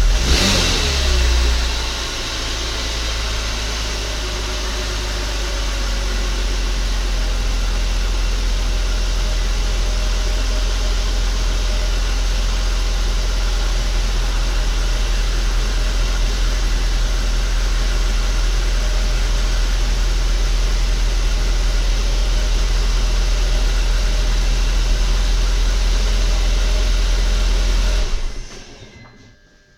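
2004 BMW 325i's inline-six engine falling back from a brief rev in the first two seconds, then idling steadily; after the rev the cold-start knock has stopped. The sound cuts off about two seconds before the end.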